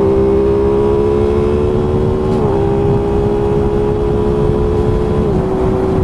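Aprilia Tuono 660's parallel-twin engine running steadily under way, its pitch dipping briefly three times, about two and a half seconds apart, as the quickshifter changes gear. Heavy wind rumble on the microphone lies under it.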